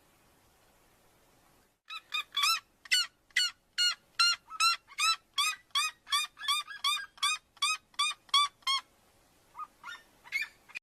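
Red-legged seriema calling: a fast series of loud, arched yelps, about three a second, for some seven seconds, then a few fainter yelps near the end.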